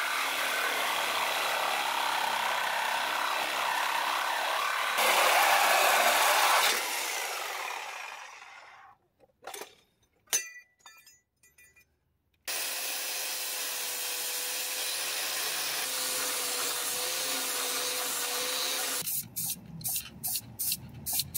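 Power tools cutting off and grinding down the steel bump-stop mounting cup on the truck's frame. The cutting tool runs steadily, louder about five seconds in, then winds down. After a short gap with a few clicks, a grinder runs steadily with an even whine, smoothing the cut, and near the end come short hisses from an aerosol spray-paint can.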